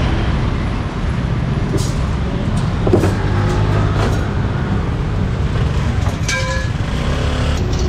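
Steady rumble of city street traffic, with motor vehicles passing close by.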